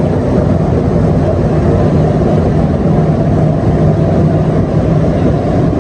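Montreal Metro train running on its rubber tyres: a loud, steady low rumble with a constant hum under it.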